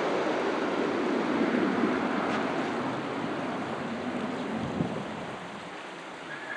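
Jet engine roar of a twin-engine airliner on landing approach, low over the runway and moving away, fading steadily, with one short thump about five seconds in.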